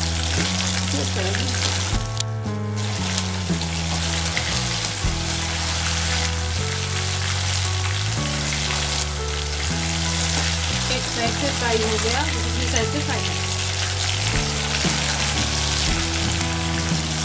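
Marinated chicken pieces deep-frying in hot oil in a metal kadai: a steady, dense sizzle, with a slotted spoon stirring through the pieces. The sizzle briefly cuts out about two seconds in.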